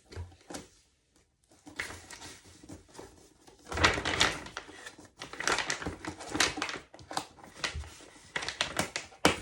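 Toy packaging being handled and opened: irregular rustling, crinkling and clicking of parts and wrapping, busier from about four seconds in, with a sharp click near the end.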